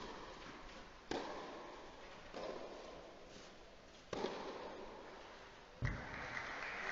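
Tennis ball struck back and forth with rackets in a rally on a clay court: a string of sharp hits about every one to two seconds, each ringing in the echo of the hall. The last and heaviest hit, near the end, is followed by applause.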